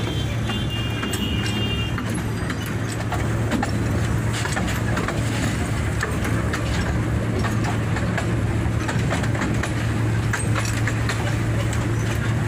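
Park toy train running steadily: a constant low engine hum with scattered clicking and clattering from the wheels and carriages.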